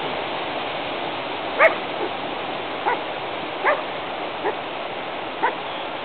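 A dog barking in short, high yips, about six of them roughly a second apart, over a steady hiss.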